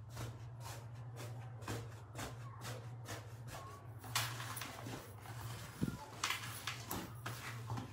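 Hands pressing and squeezing a fluffy foam slime: a quick run of small crackles, turning into denser squishing from about four seconds in. A steady low hum runs underneath.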